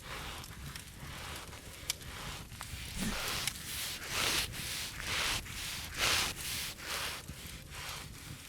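Close-up ASMR rubbing sounds: a series of soft, noisy swishes, about two a second, louder in the middle, with a single sharp click about two seconds in.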